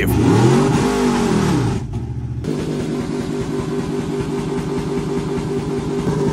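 Truck engine running while driving. Its pitch rises and falls over the first couple of seconds, then it settles into a steady drone with a low rhythmic throb. The driver suspects a seized U-joint or differential in the driveline.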